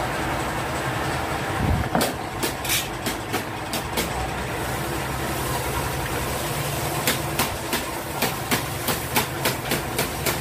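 Aluminium sliding-window frame being tapped and knocked as it is fitted onto a glass pane: a thump, then runs of light sharp taps about three a second, one around two to four seconds in and another from about seven seconds on, over a steady background hum.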